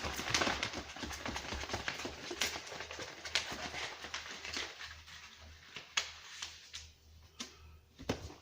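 Rustling and light tapping of cards or pictures being sorted by hand, busy at first and thinning to scattered clicks after about four seconds.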